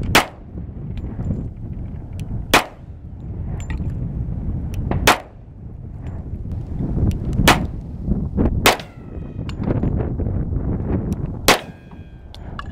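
Handgun fired six times in slow aimed fire, most shots about two and a half seconds apart. A brief metallic ringing follows two of the later shots, and a steady low rumble runs under them.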